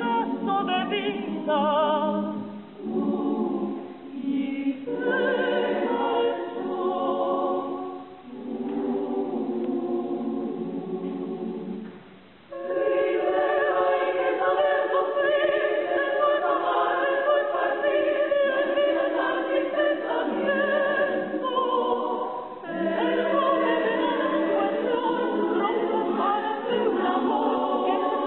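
Women's choir singing, in short phrases with brief breaks for about the first twelve seconds, then in a fuller, louder passage.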